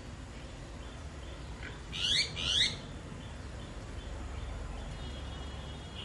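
Two short, high chirping calls from an animal, one right after the other about two seconds in, over a steady low background hum.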